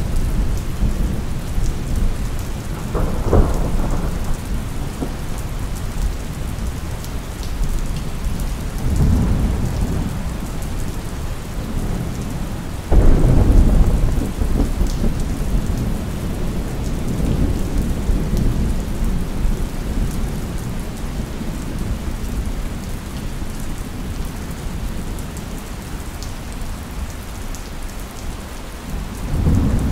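Steady rain with rolling thunder: low rumbles swell about three seconds in and again near nine seconds, a sudden loud clap about thirteen seconds in rumbles on for several seconds, and another rumble builds near the end.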